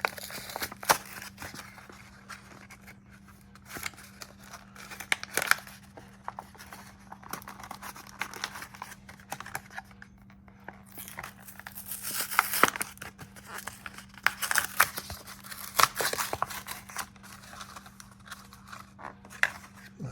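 Yu-Gi-Oh trading-card package being torn open by hand: crinkling, rustling and ripping of the packaging with sharp clicks, loudest in bursts about twelve and fifteen seconds in. A faint steady low hum sits underneath.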